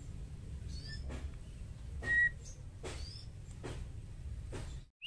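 Female white-rumped shama giving a few short whistled call notes, the loudest a steady note about two seconds in, over a steady low rumble and faint clicks. The sound cuts out for a moment near the end.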